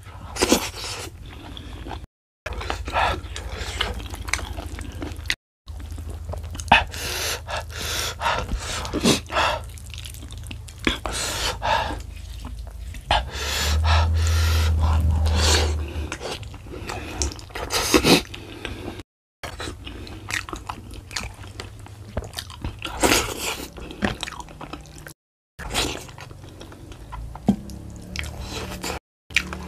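Close-up eating sounds of a person chewing beef-foot tendon and rice with sambal: wet smacking, sticky clicks and chewing, with fingers squishing rice. A louder low hum lasts about two seconds around the middle, and the sound drops out completely for brief moments several times.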